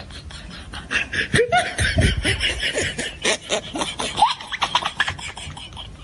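People laughing hard in quick breathy bursts, with a few short squeals that rise in pitch.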